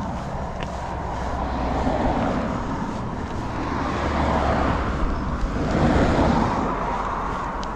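Cars passing on the road just ahead, growing louder about four to six seconds in, over a low rumble of wind on the microphone.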